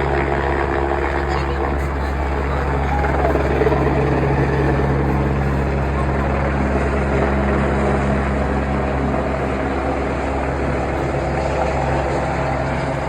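Helicopter flying low, its rotor and engine making a loud, steady drone.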